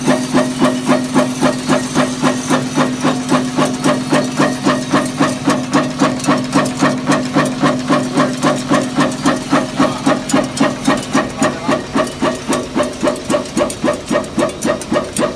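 Automatic screw threading machine running: a steady hum under a regular clack that repeats about three times a second.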